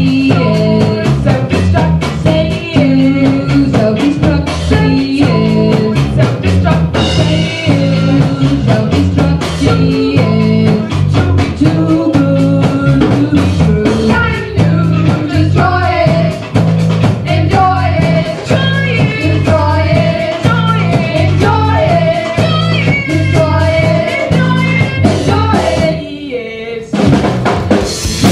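A rock band playing, with a busy drum kit, a repeating bass line and a singing voice. The music drops away briefly near the end, then comes back in loud.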